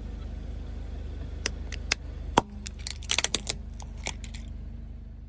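Car tyre rolling slowly over and crushing a small red plastic item on asphalt: sharp cracks and snaps over a low engine rumble. Single cracks come at first, the loudest about two and a half seconds in, then a quick cluster of snaps around three seconds.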